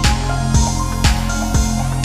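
Background music: an electronic track with a steady beat of about two drum hits a second.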